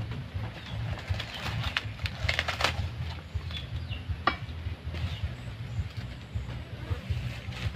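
Bamboo fence poles and leaves being handled: scattered rustles and cracks, a cluster about two and a half seconds in and one sharp crack just past four seconds, over a steady low rumble.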